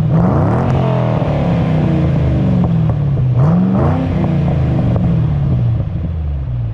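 Exhaust of a 2008 Ford Mustang Roush Stage 3's supercharged V8, free-revved with the car standing still: the revs jump sharply right at the start and fall slowly away, then jump again about three and a half seconds in and fall away once more.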